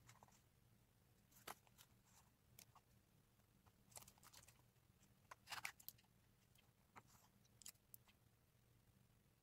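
Near silence over a faint low hum, broken by a few soft clicks and rustles of tools and the painted disc being handled on newspaper, the clearest short crackle about five and a half seconds in.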